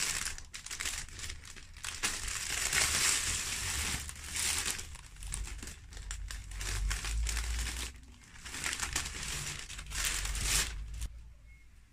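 Clear plastic wrapping crinkling and rustling in repeated waves as it is cut open with scissors and pulled about on a mesh chair seat, stopping about a second before the end.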